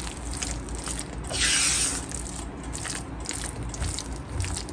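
Silicone spatula stirring and scraping a thick chicken filling around a nonstick frying pan: a run of quick, uneven scrapes and clicks, with one louder, longer swish about a second and a half in.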